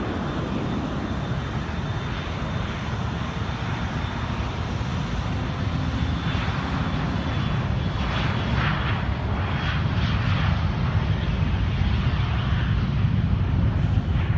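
Business jet's turbofan engines running, a steady dense rush that grows gradually louder, with a thin high whine in the first few seconds.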